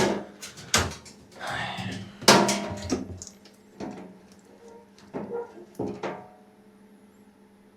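Knocks and clunks of washing-machine parts being handled and fitted during reassembly, about half a dozen irregular hits with some scraping between them, going quiet near the end.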